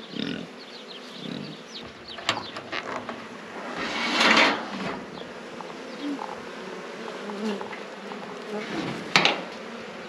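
Honeybees buzzing as they fly close around a swarm box, a steady hum throughout. A loud rustling burst comes about four seconds in, and a sharp knock near the end.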